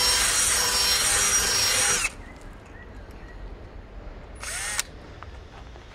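Cordless drill driver running steadily with a motor whine as it drives a screw into the arbour's timber, stopping about two seconds in; a brief second burst follows about four and a half seconds in.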